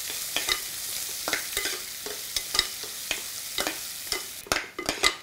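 Chopped onion sizzling in hot oil in a pressure cooker, stirred with a spatula that scrapes and taps against the pot about twice a second. Near the end the sizzle drops away, leaving a few sharper taps.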